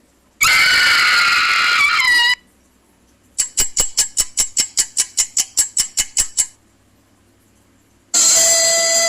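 A run of short sound-effect clips played one after another. First comes a loud, noisy sound about two seconds long with shrill tones that bend upward at its end. Then a rapid train of sharp clicks, about six a second, lasts some three seconds, and a melodic music clip starts near the end.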